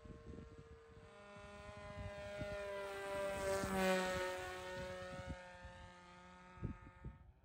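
Homemade pusher-prop FPV plane's motor and propeller whining as it flies low past, growing louder to a peak about four seconds in and dropping in pitch as it goes by. The sound cuts off sharply near the end.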